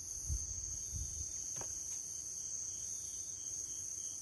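Crickets trilling steadily in a continuous high-pitched insect chorus, with a few soft low thumps underneath.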